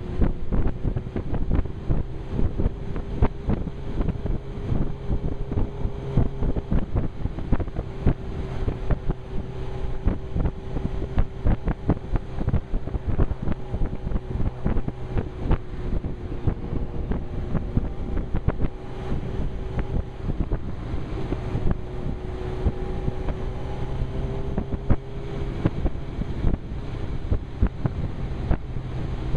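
Wind buffeting a helmet-mounted microphone on a moving motorbike, with the Suzuki GSX-R 1000's inline-four engine humming underneath at steady cruising revs, its pitch rising and falling a little.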